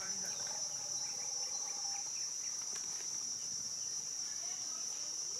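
Steady insect chorus: one unbroken, shrill high-pitched drone that holds at an even level, with a few faint short calls in the background.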